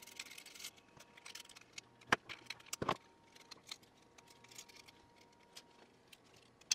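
Handling noise of a small electronics enclosure being taken apart: a circuit board with its metal end panel slid out of a metal case, with a short scrape at the start, scattered light ticks and rattles, and two sharper clicks about two and three seconds in.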